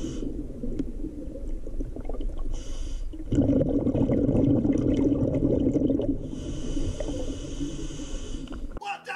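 A scuba diver breathing through a regulator underwater: hissing inhales alternate with bubbling exhales, and the loudest stretch of bubbles falls in the middle.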